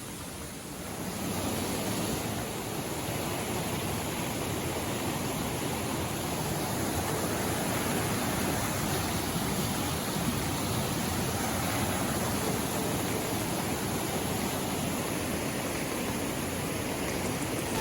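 Steady rush of flowing water, swelling to a louder level about a second in and then holding.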